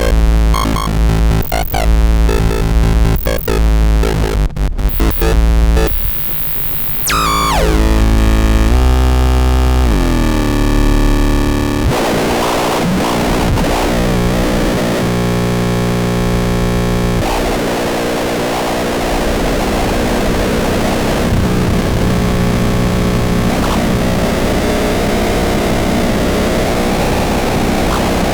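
Loud live electronic noise music: chopped, pulsing heavy bass and distorted synthesized tones, then a steep falling sweep about seven seconds in, giving way to a dense, steady wall of layered drones and noise.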